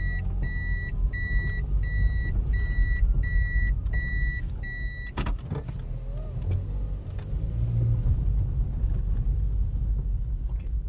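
A car's warning chime beeping about twice a second over the low rumble of the running car. The beeping stops with a sharp click about five seconds in, and the car's rumble carries on.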